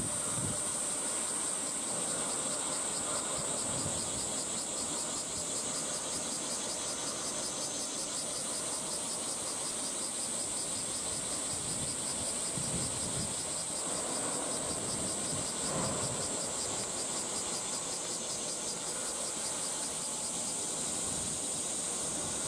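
A chorus of cicadas keeps up a steady, high, rapidly pulsing drone, with faint low rumbles swelling now and then underneath.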